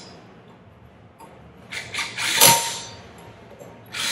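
Cordless impact driver hammering down the air-chamber bolts of a metal diaphragm pump, in two bursts. The first comes about two seconds in and swells then fades; the second starts just before the end.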